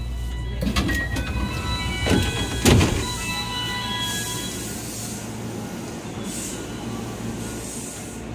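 Electric commuter train's sliding doors opening with a few knocks, the loudest about two and a half seconds in, over the train's steady low hum. After that, short electronic chime tones play on and off.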